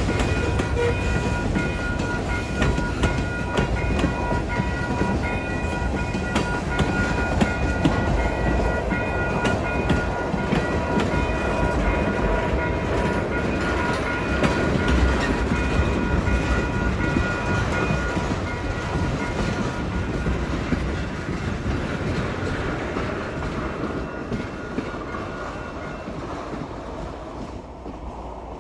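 Freight train cars rolling past through a grade crossing, with wheels clattering on the rails and a steady high ringing tone. The tone stops and the rumble fades away near the end as the last cars pass.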